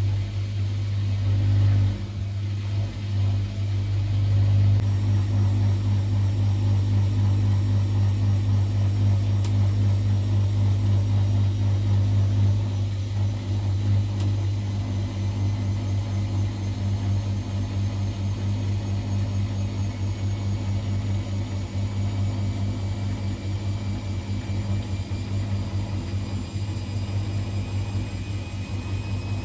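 Bosch WFCX 2460 front-loading washing machine spinning, a loud steady low hum. In the second half a faint motor whine slowly climbs in pitch.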